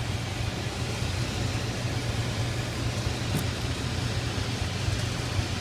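McQuay rooftop air handler's fan motor running steadily with a low hum, the unit in recirculation mode with no heat firing. A faint click a little past the middle.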